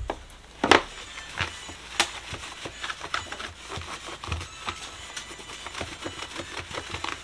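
White plastic slotted organizer basket being handled and wiped down with a cloth: scattered light plastic clacks and knocks, the sharpest just under a second in, over soft rubbing.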